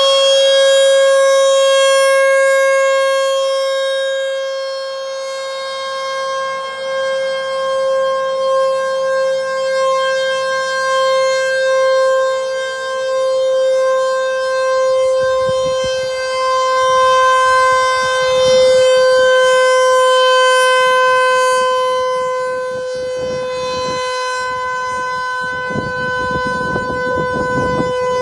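ASC RM-130 outdoor warning siren sounding a long steady wail on a single pitch that eases slightly lower, its loudness swelling and fading every few seconds as the rotating horn sweeps past. This is the full-length monthly test signal.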